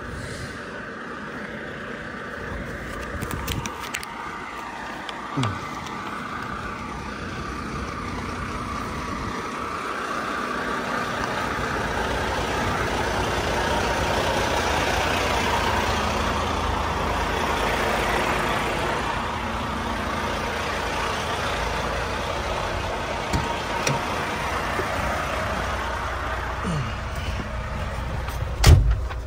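Diesel semi-truck tractor idling, growing louder toward the middle as the microphone comes up to the truck, then settling. A sharp thump about a second before the end.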